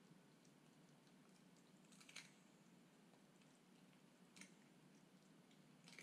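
Toy poodle chewing a raw duck foot: a few faint, sharp crunching clicks spaced a second or two apart, the first about two seconds in.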